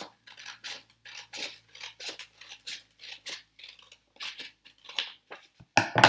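Scissors cutting a folded sheet of printer paper along its crease: a quick, fairly even run of short, crisp snips, with a louder one near the end.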